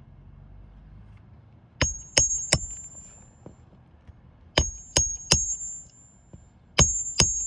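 Hammer driving roofing nails into asphalt shingles: three quick blows, a pause, three more, then two more, each strike with a high metallic ring.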